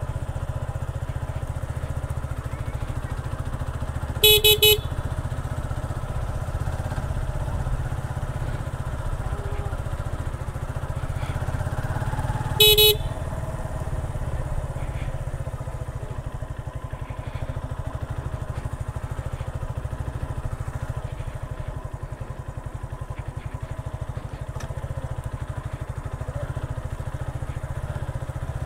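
Motorcycle engine running steadily while riding, with short horn beeps twice: a quick series about four seconds in and another pair about thirteen seconds in.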